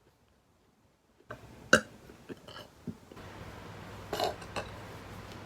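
A person burping: a short, loud burp about two seconds in, a few smaller ones after it, and another burp about four seconds in.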